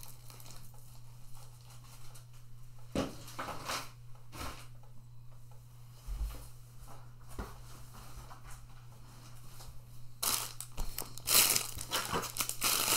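Clear plastic packaging being handled and crinkled: a few scattered rustles at first, then dense, louder crinkling from about ten seconds in as a wrapped item is handled in its plastic.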